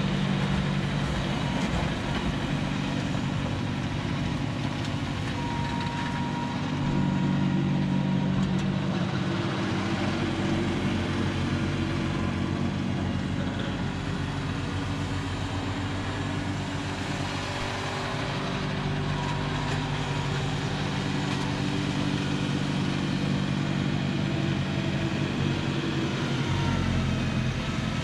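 John Deere 4052R compact tractor's diesel engine running steadily under load, driving a front-mounted Pronovost PXPL-80 snowblower, with the blower's broad whir over the engine hum.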